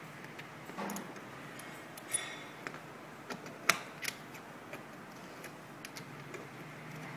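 Scattered small clicks and taps as hands plug in and turn the round metal cable connectors on a date printer's controller box, over a faint steady hum.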